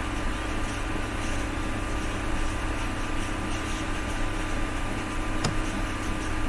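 Steady room tone: background hiss with a low hum and a faint steady whine, and one sharp click about five and a half seconds in.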